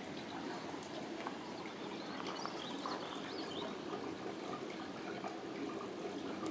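Creek water flowing and trickling steadily, with small splashes now and then.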